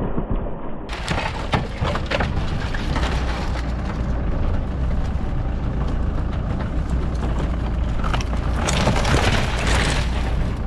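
Off-road 4x4 vehicle engine running with a steady low drone, under a noisy rush of outdoor sound and a few short sharp knocks or crunches.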